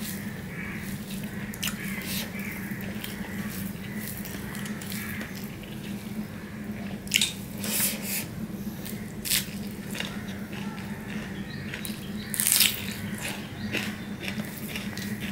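Close-up wet eating sounds: fingers squishing rice and mashed taro leaves against a steel plate, with chewing and lip smacks. A few louder smacks come about halfway through and near the end, over a steady low hum.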